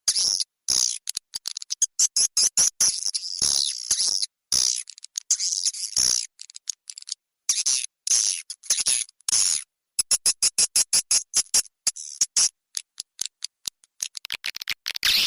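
Recorded swiftlet calling sound, a lure track played to draw swiftlets into a swiftlet house: dense, high-pitched chirping and twittering, cut into many short pieces with abrupt silent gaps between them.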